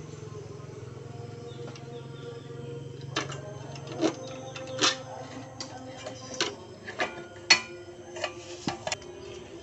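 Metal parts of a Yamaha Vega ZR's exhaust being handled as the muffler and its mounting bolts come off. Irregular clinks and knocks start about three seconds in, over a steady low hum.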